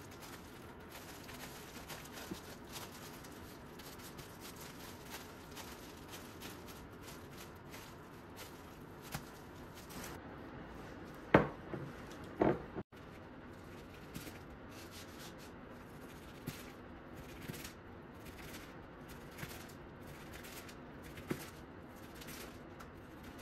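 Gloved hands rolling and pressing a kimbap roll on paper over a plastic cutting board: soft rustling and scraping, with two louder knocks about halfway. Then a kitchen knife slicing through the roll, a soft tap on the board with each cut.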